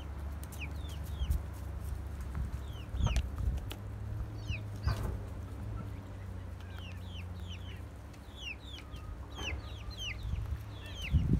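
Young chickens peeping and clucking, many short falling chirps in scattered runs, with a few sharp taps as a pullet pecks mash feed from a hand-held plastic cup. A steady low hum runs underneath.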